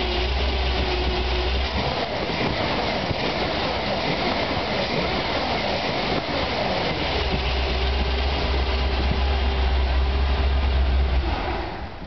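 Chevy 454 big-block V8 running with a rough idle on its first start. About two seconds in the steady engine note turns uneven and rises and falls for about five seconds, then settles back into a steady idle before fading out at the end.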